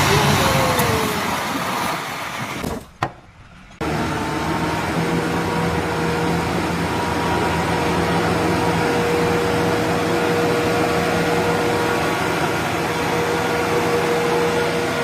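Motor vehicle engine running steadily, with a brief near-silent gap about three seconds in before it picks up again.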